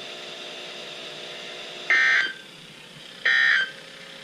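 NOAA Weather Radio end-of-message data bursts, the digital EAS/SAME tones that close the required weekly test, heard through a weather radio receiver. Two short bursts come about a second and a half apart.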